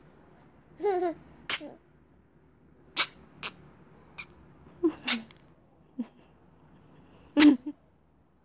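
Young baby cooing and giggling: a short gliding coo about a second in, then a string of brief, sharp breathy squeals and huffs scattered over several seconds, the loudest near the end.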